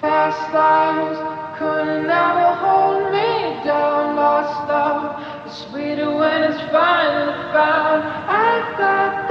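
Music: a song with singing voices, several held notes sounding together, starting suddenly.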